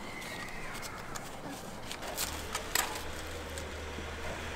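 Light clicks and taps from food-prep handling: a plastic-wrapped waffle held in gloved hands and cream being spread. A steady low hum comes in a little after two seconds.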